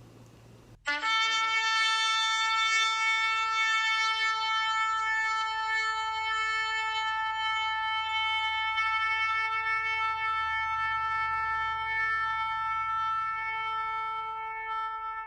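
Shofar blown in one long, steady held note of about fourteen seconds, starting abruptly about a second in.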